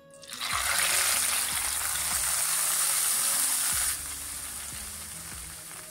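Hot ghee tempering (tadka) of mustard seeds, cumin, curry leaves and dried red chillies is poured into a pot of rasam and sizzles hard as it hits the liquid. The sizzle starts just after the pour, stays loud, and drops to a softer, steady sizzle about four seconds in.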